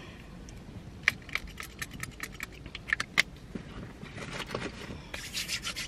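A run of light, irregular clicks and taps, then rustling handling noise of small objects being moved about.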